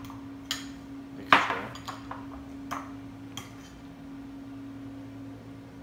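A metal utensil clinking and scraping against a ceramic bowl while stirring a thick cheese mixture: about six separate clinks in the first three and a half seconds, the loudest about a second and a half in, then quieter. A steady low hum runs underneath.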